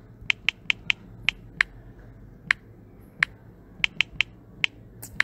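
Key-press clicks of a smartphone's on-screen keyboard as a word is typed: about a dozen short sharp ticks at an uneven pace, several in quick runs.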